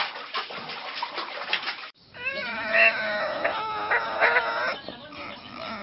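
A clattering, rustling noise that stops abruptly about two seconds in, then an animal calling in a string of wavering, pitched cries for about three seconds.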